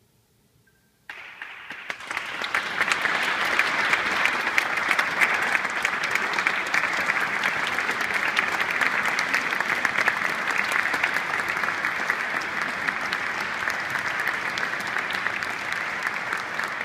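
Audience applauding: the clapping breaks out suddenly about a second in, swells within another second, then holds steady.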